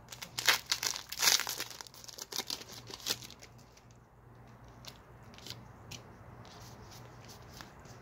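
Foil Pokémon TCG booster pack wrapper being torn open and crinkled, dense for about the first three seconds, then only a few faint crinkles and clicks as the cards come out.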